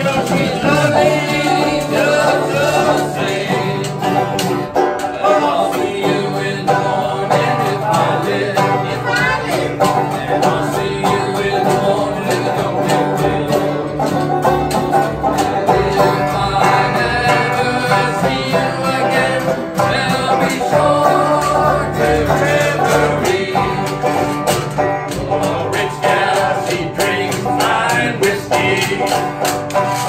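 Live country-style string band playing: strummed acoustic guitar and banjo over a washtub bass holding low notes, with male voices singing.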